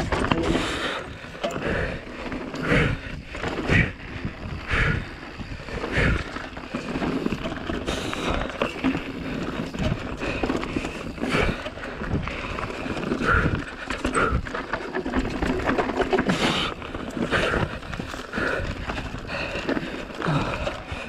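Giant Reign Advance full-suspension mountain bike racing down a rough dirt trail: a steady rolling rumble from the tyres, broken by frequent irregular knocks and clatter as the bike takes bumps and roots.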